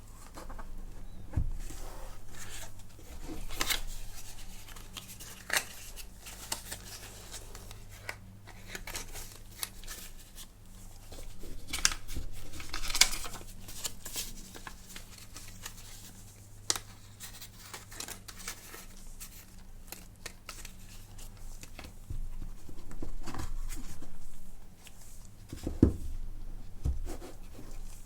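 Smartphone packaging being handled and opened: paper and plastic rustling and tearing, with sharp clicks and taps scattered throughout, over a faint steady low hum.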